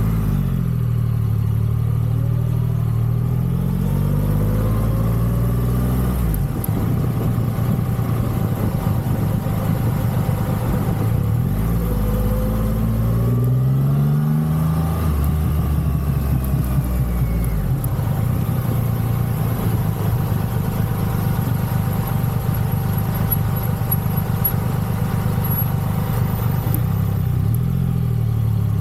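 Triumph Rocket 3's three-cylinder engine pulling under acceleration. Its pitch climbs over the first six seconds, drops at a gear change, climbs again between about eleven and fourteen seconds, then holds steady at cruising speed.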